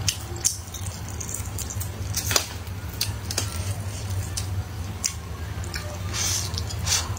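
Close-up mouth sounds of eating meat: wet chewing, lip smacks and sticky clicks at irregular moments, over a steady low hum.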